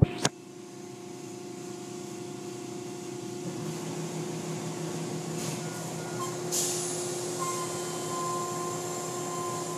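Automatic tunnel car wash running, heard from inside a car: water spraying and streaming over the body over a steady machinery hum, slowly growing louder. Two sharp knocks come right at the start.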